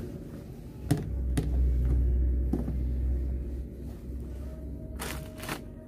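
A protective coverall rustling and brushing close to the microphone as it is put on. There is a low rumble through the middle, two knocks about a second in, and two short rustles near the end.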